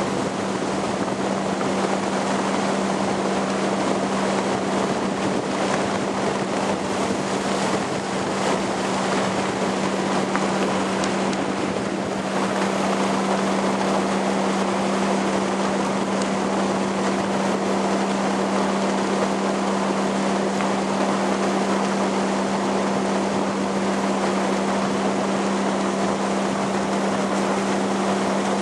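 Motorboat under way, its engine running with a steady hum, over a constant rush of water and wind noise on the microphone.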